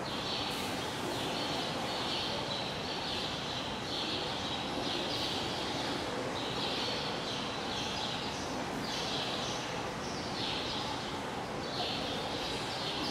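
Outdoor ambience: a steady background hiss and hubbub with a high, rasping chirp repeating about once a second.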